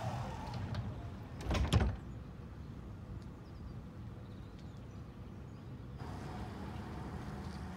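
Tram doors sliding shut with a short, loud bang about a second and a half in, then the tram's steady low hum.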